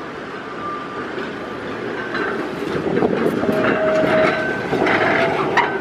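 Blackpool's 1962 Illuminated Western Train tram approaching and passing on street track. Its wheels rumble and click over the rails, louder from about two seconds in, with brief high squeals.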